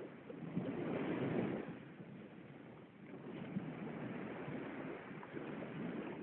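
Steady rushing noise of wind and breaking sea surf, swelling louder about a second in and again in the second half.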